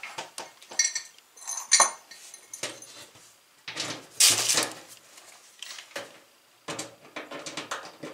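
Screws and metal parts of a washer's cover being handled and set in place: scattered light clicks and metallic clinks, a couple with a short ring about one and two seconds in.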